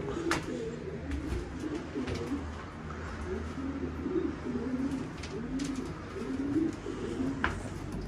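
Racing pigeons cooing, several low, rolling coos one after another.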